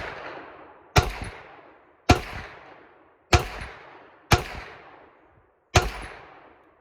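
Hi-Point carbine fired five times in semi-automatic, about one shot a second with a slight pause before the last. Each sharp report trails off in a long echo.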